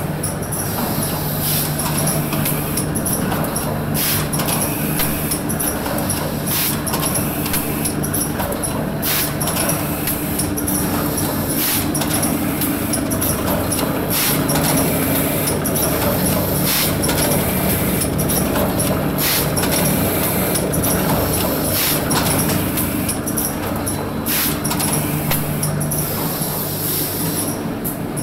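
ITALPACK PACK25 automatic flour packing machine running, with a steady low mechanical hum. Short sharp hisses from its compressed-air actuators come about once a second.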